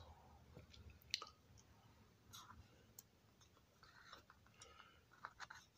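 Near silence with a few faint, sparse clicks and taps of hands handling a small model train tender and its wires, a little cluster of them near the end.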